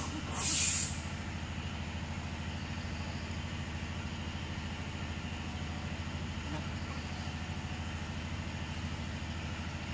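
Steady low engine hum with a fast, even pulse, and a short loud hiss about half a second in.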